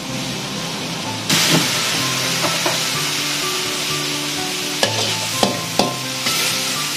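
Chicken and kale sizzling in a hot wok over a gas burner, the hiss growing louder about a second in, with a metal spatula scraping and clicking against the wok a few times as the food is stirred.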